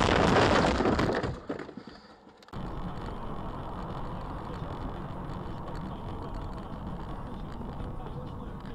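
Dashcam audio of a car going off the road: loud crashing noise that dies away within about two seconds. After a sudden switch, the steady engine and road noise of a car driving, heard from inside the cabin.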